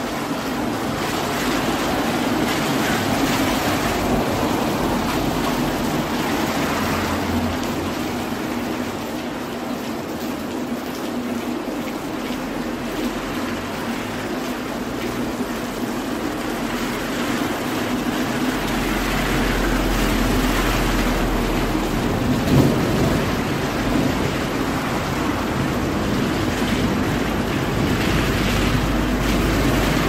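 Steady rain falling on a city street: a dense, even hiss that swells and eases. A deep low rumble comes in a little past the middle and stays underneath.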